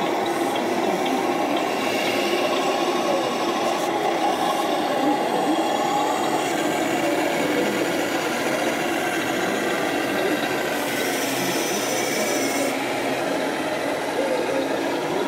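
Steady hall noise of radio-controlled model trucks running and people talking in the background, with a hiss lasting about two seconds a little past the middle.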